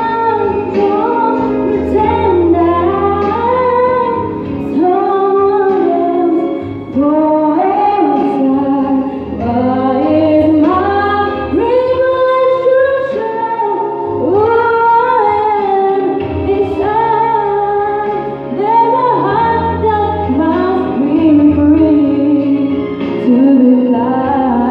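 A young woman singing a song into a microphone, amplified over recorded backing music, in long held notes that glide up and down.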